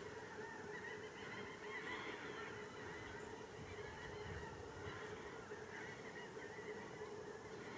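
Many birds calling at once, a faint dense chatter of overlapping short calls, over a steady low hum.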